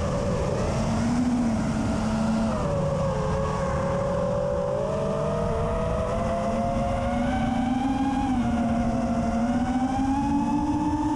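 Onboard audio of a 5-inch FPV quadcopter in flight: its brushless motors and propellers give a steady buzzing whine whose pitch rises and falls with throttle, over a rush of wind and prop wash.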